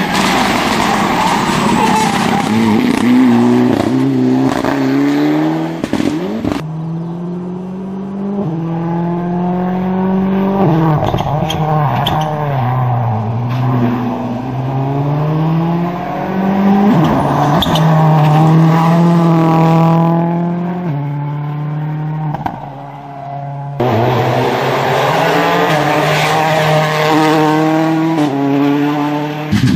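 Rally cars driving hard through corners, one after another: engines revving up through the gears in repeated rising steps, then dropping back off the throttle for the bends.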